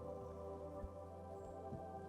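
Quiet ambient background music: soft, sustained held tones with no beat.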